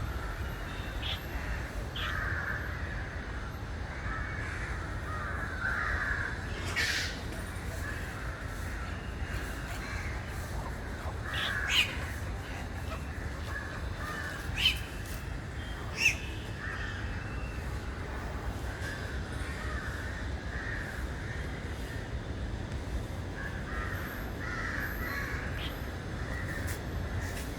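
Aviary birds calling again and again, with a few short, sharp, higher calls standing out around the middle, over a steady low rumble.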